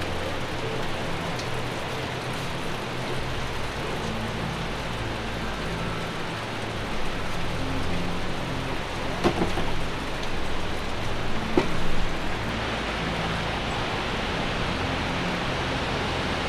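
Steady rush of falling water from a waterfall, with two sharp knocks about nine and eleven and a half seconds in.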